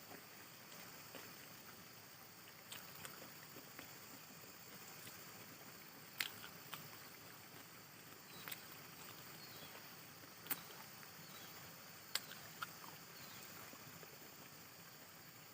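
Quiet eating sounds: scattered sharp clicks and smacks, about eight of them, over a faint steady hiss.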